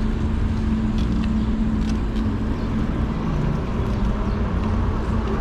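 Steady road and wind noise from a fat-tire e-bike riding along a road, with a steady hum in the first couple of seconds.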